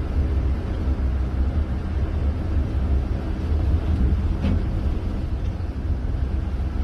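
Steady low rumble of a car's engine and tyres heard from inside the cabin while it drives along a waterlogged road.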